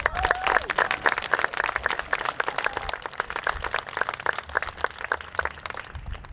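Crowd applauding outdoors, dense clapping with a brief voice or cheer over it near the start, dying away near the end.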